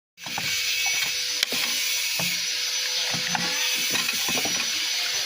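A small mechanical tool running steadily with a high whine and hiss, and many scattered clicks and rattles.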